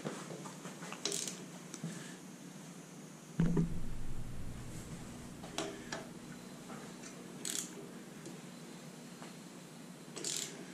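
Scattered light metallic clicks and ticks, with one heavier knock about three and a half seconds in: hand tools and parts being handled on a bare aluminium cylinder head.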